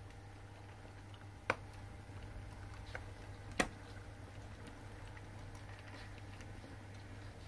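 Gauge 0 model goods train rolling slowly past, its metal wheels ticking faintly on the track, with two sharp clicks about a second and a half and three and a half seconds in, over a steady low hum.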